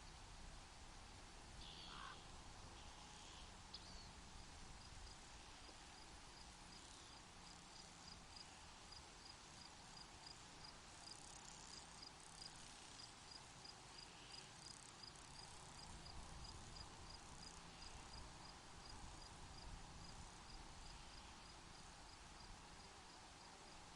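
Faint outdoor ambience with a long run of high, evenly spaced ticks, about three a second, starting a few seconds in, and a few faint chirps near the start.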